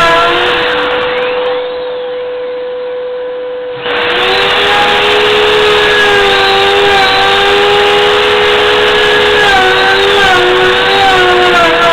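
Black+Decker KW1200EKA plunge router running with a household vacuum cleaner attached for dust extraction, cutting an edge profile into hard birch: a steady whine with a second motor tone that wavers in pitch as the cut loads it. The sound drops back for about two seconds and returns abruptly about four seconds in.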